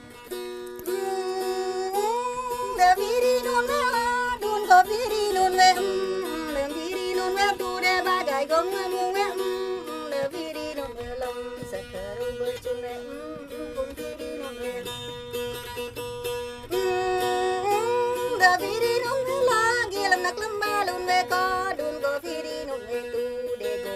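Traditional T'boli music: a plucked string instrument playing a wavering melody over a steady drone. The melody pauses for several seconds in the middle while the drone carries on, then comes back.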